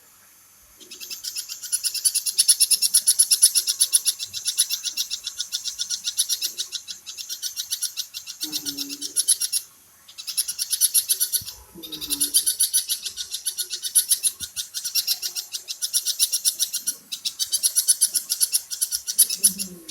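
Birds chirping in long, very fast runs of high-pitched chirps, broken by a few short pauses, with some faint lower calls now and then.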